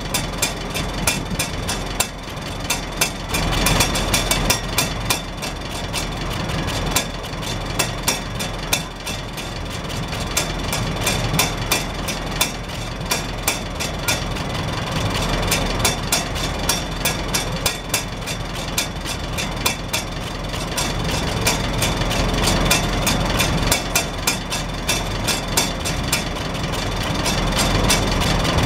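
Farmall Super H's four-cylinder engine idling steadily through a straight vertical exhaust stack, with a rapid, even beat of exhaust pulses. Irregular sharp taps sound over it as the hinged flapper rain cap on the stack lifts and drops on the pulses.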